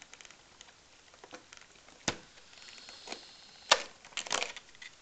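Cardboard advent calendar box being handled and its number door pried open: a few sharp clicks and cracks of card, the loudest about three and a half seconds in, followed by a quick run of crackles.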